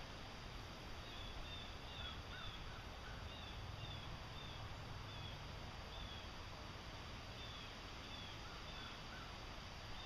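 Faint bird calls: short notes repeated about twice a second in loose runs, over a steady outdoor background hiss.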